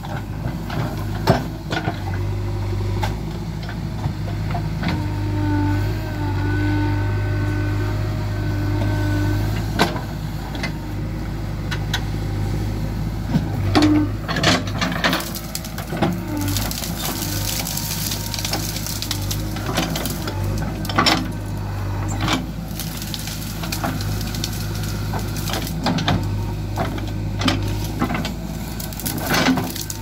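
JCB 3DX backhoe loader's diesel engine running steadily under working load, with a wavering whine about five to ten seconds in. Over it come many sharp cracks and snaps of branches and brush being broken and crushed by the backhoe bucket, thickest in the second half.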